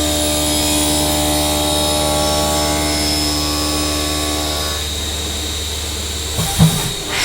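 Vertical machining centre running a grinding wheel on its spindle, a steady hum and whine made of many tones. About five seconds in, some of the higher tones drop away, and a short knock comes near the end.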